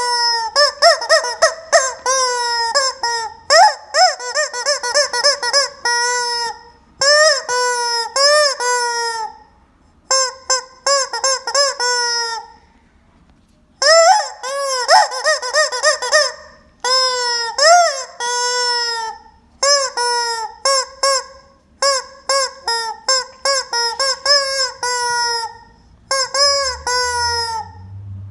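Rubber squeaking chicken toy being squeezed over and over, giving short honking squawks that rise and fall in pitch, in quick runs of several, with a pause of about a second and a half near the middle.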